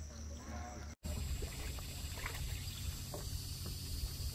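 Wind on the microphone as a steady low rumble and hiss, with faint water sounds from a canoe on a river. The sound cuts out briefly about a second in.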